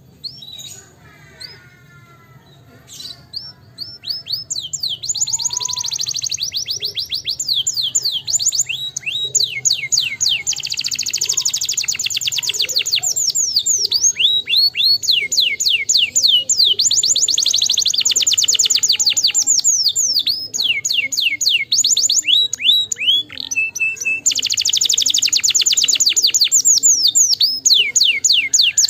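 Domestic canary singing a long song of very fast, high trills and rapidly repeated notes, starting a few seconds in, with a short break about two-thirds of the way through.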